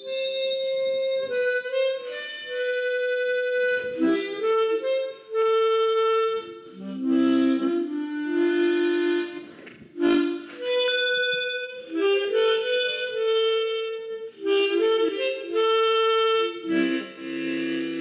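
Instrumental music: a melody of held notes and chords in phrases a few seconds long, with short breaks between them.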